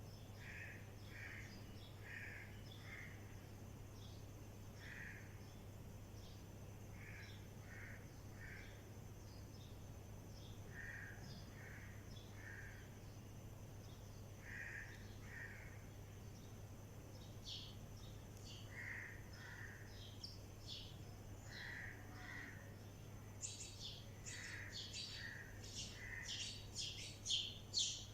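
Mynas and sparrows calling: short calls repeated every second or so throughout, with a dense run of louder, high chirping over the last few seconds. A steady low hum lies underneath.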